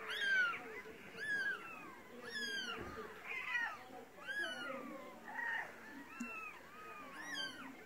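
Several cats meowing over and over, short rising-and-falling meows about once a second, some overlapping at different pitches: cats begging while being handed food.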